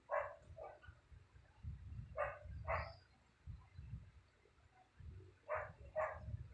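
A dog barking in pairs of short barks, three pairs a few seconds apart, over a low rumble.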